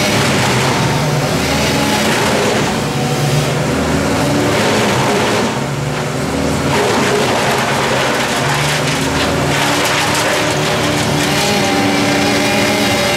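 An engine running continuously, its pitch stepping up and down as its speed or load changes, with a short dip about five to six seconds in.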